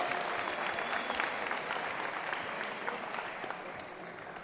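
Crowd applauding, the clapping gradually dying away.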